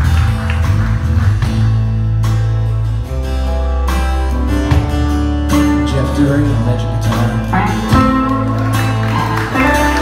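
Live country band playing an instrumental passage: electric guitars over bass guitar and a drum kit.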